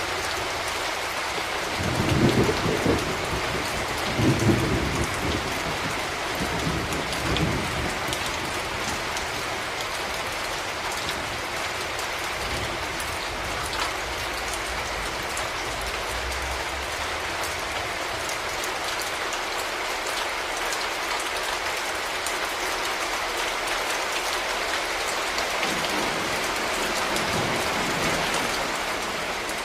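Steady rain pouring in an even hiss, with low rolls of thunder rumbling through it about two seconds in and again near the end.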